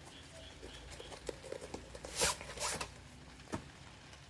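A zipper being pulled open on a fire pit's storage case, in two long pulls about two seconds in, after some small clicks and rustling from the case.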